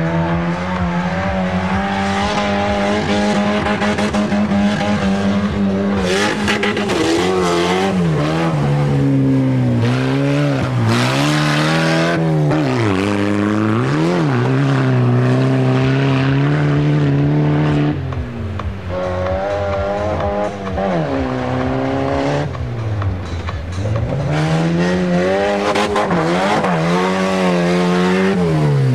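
Off-road race vehicle's engine running hard: held at steady high revs at first, then repeatedly dropping and climbing in pitch as the driver lifts off and accelerates again.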